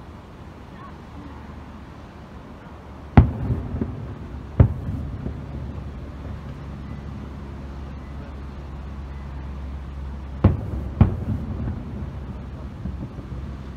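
Aerial firework shells bursting: four sharp booms, a pair about a second and a half apart around three seconds in and a closer pair about half a second apart around ten seconds in. Each boom is followed by a short rumbling echo, over a steady low background drone.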